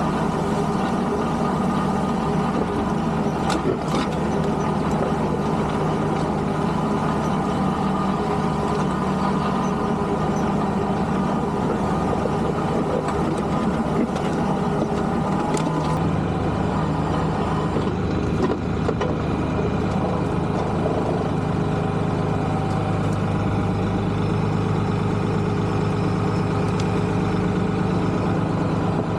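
Tractor engine running steadily, its low note shifting and strengthening about sixteen seconds in, with a couple of sharp clacks near four seconds.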